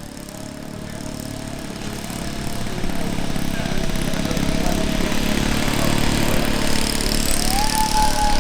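Engines of a model F-14 Tomcat RC jet running with a steady whine that grows louder. Near the end the pitch rises as the throttle is opened.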